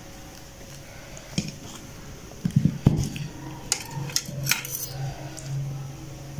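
A fluted glass bowl being handled as peeled bananas are put into it: scattered light taps and clinks against the glass, with a louder cluster of knocks about two and a half seconds in.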